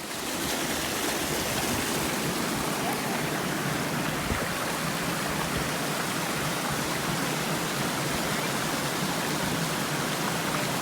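A small waterfall, water falling and rushing in a steady, even flow that fades in at the start.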